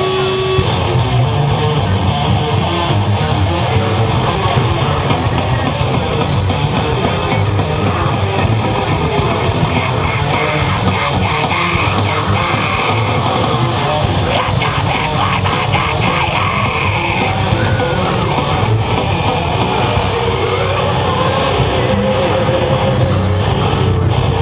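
Loud, distorted heavy rock music with guitars and drums playing steadily.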